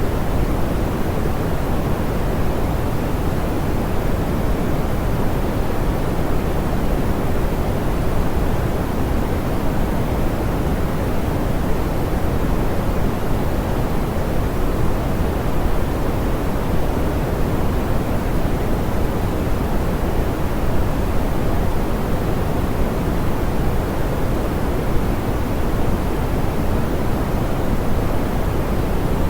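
Steady, smoothed pink noise: an even, unchanging hiss weighted toward the low end, softer in the highs.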